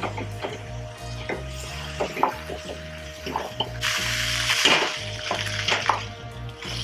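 Silicone spatula stirring and scraping vegetables in coconut milk around a nonstick wok, in a run of short strokes, over a sizzle that swells for about a second near the middle.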